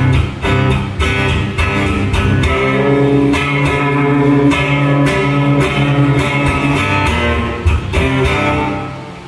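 Guitar strummed in rapid chords, the notes ringing on and dying away near the end.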